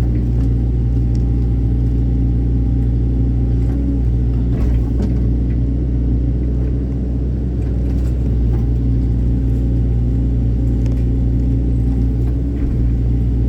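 Excavator's diesel engine running steadily, with a few faint clicks and knocks over it.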